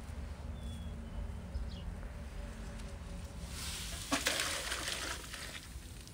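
Hot water poured from a large round iron griddle pan into a metal bucket. The splashing pour starts about three and a half seconds in, is loudest just after it begins, and tails off into a trickle after a couple of seconds.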